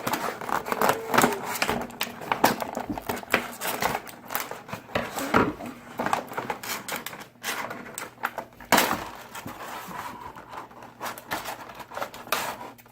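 Irregular clicks, rustles and clatter of cardboard and plastic toy packaging being handled and opened.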